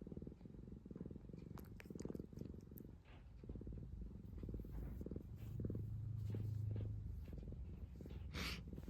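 Domestic cat purring close to the microphone, a steady rapid rumble that swells louder around the middle. A brief noise sounds near the end.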